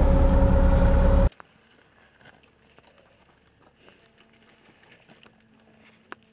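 Stryker medical evacuation vehicle's diesel engine running with a steady hum, cut off abruptly about a second in. Then faint, scattered crackling and snapping of dry brush as a soldier pushes through bare branches.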